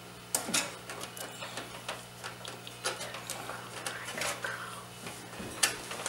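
A screwdriver driving a small screw into a sound card's rear bracket on a thin-metal PC case: irregular small metal clicks and scrapes, with a few sharper knocks.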